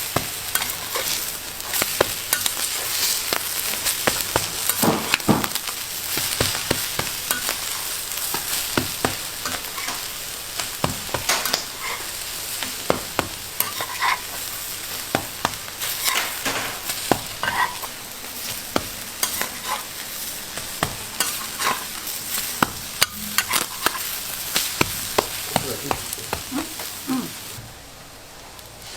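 Food frying and sizzling on a hot pan or griddle, with metal utensils repeatedly clicking and scraping against the cooking surface while it is stirred. The sizzle drops away near the end.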